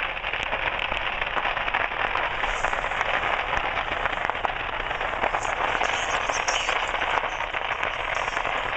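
Dense, steady crackling with many small pops: fireworks and firecrackers going off in a burning fireworks stand.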